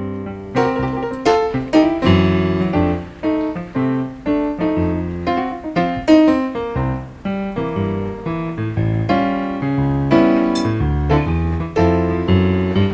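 Solo piano music: a melody of struck notes over a moving bass line, played at a steady pace.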